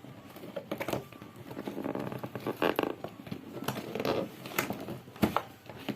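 Cardboard packaging being opened and handled: irregular rustling and scraping with scattered clicks, and a sharper knock about five seconds in.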